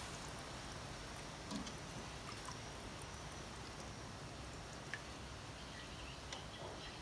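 A stainless-steel ladle stirs beef pieces through coconut milk in a stainless-steel pot, with quiet liquid sloshing and a few light clicks of the ladle against the pot.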